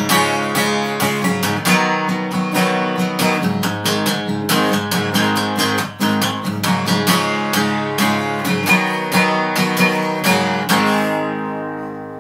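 Steel-string acoustic guitar strummed solo in a fast, driving rhythm, ending the song on a final chord a little before the end that rings out and fades.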